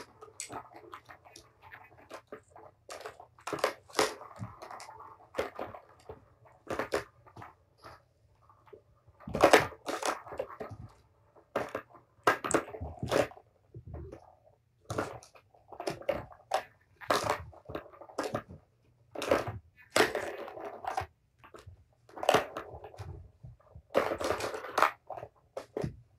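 Kittens batting the balls in a Tower of Tracks, a plastic ball-track cat toy: irregular sharp clacks and knocks of plastic, with short rattling stretches between them.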